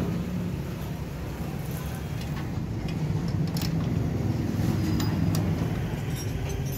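Steady low rumble of a running motor vehicle engine, with a few light metallic clicks of a spanner on a motorcycle engine.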